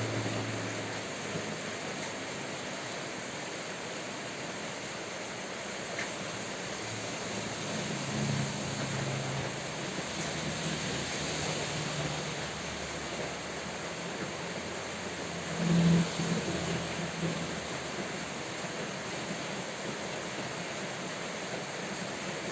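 Steady rain falling, an even hiss. Low rumbles swell a third of the way in, and a brief louder rumble comes about two-thirds through.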